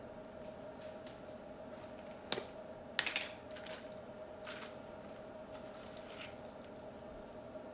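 Plastic canister of French's crispy fried onions being handled and opened: a sharp click about two seconds in and a short clatter just after, then a few lighter ticks and rustles as the onions are shaken out over the casserole. A faint steady hum runs underneath.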